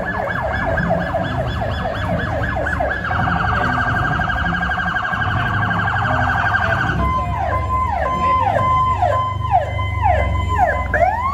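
Police motorcycle sirens: a fast yelp that switches to an even faster warble about three seconds in, then a steady tone crossed by repeated falling sweeps from about seven seconds in, and a wail starting to rise near the end, over a low rumble.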